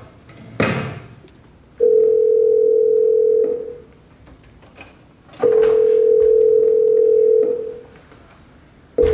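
Telephone ringback tone, the ringing heard by a caller waiting on the line: a steady low tone on for about two seconds, twice, with about four seconds of quiet between, and a third starting near the end.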